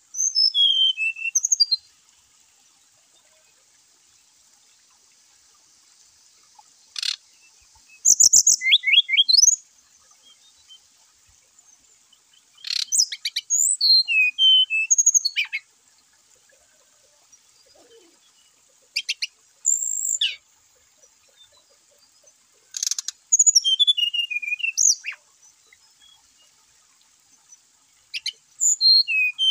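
Brown-chested jungle flycatchers (sikatan rimba dada coklat) singing: bursts of clear, high whistled notes that mostly slide downward, a phrase every few seconds.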